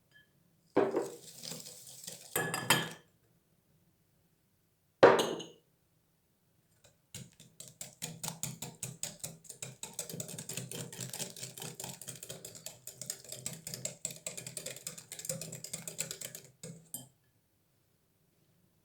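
Kitchenware clattering: a few separate knocks and clatters, then about ten seconds of quick, closely spaced clinking strokes that stop suddenly.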